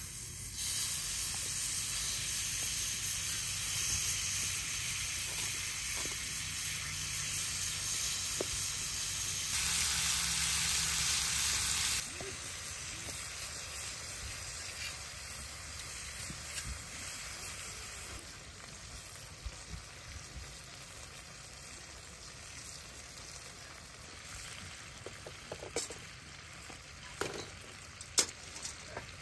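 Cubes of beef sizzling in a hot iron skillet over a wood fire. The sizzle is loud for the first twelve seconds, then drops suddenly to a softer, fading sizzle. A few sharp clicks of metal tongs on the pan come near the end as the meat is turned.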